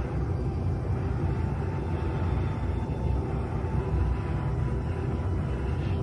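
Butane torch lighter's jet flame burning steadily against a bundle of dried sage, a low, even rushing noise.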